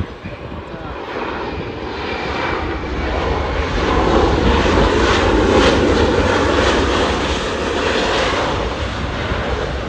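Jet airliner passing close by, its engine noise swelling to a peak about four to six seconds in and then slowly fading.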